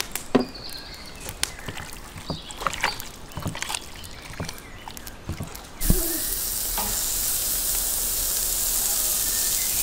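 Wet squelches and small clicks of hands working raw rabbit pieces in a bowl, then, about six seconds in, a sudden steady loud sizzling as the raw rabbit meat is laid on a hot round grill grate.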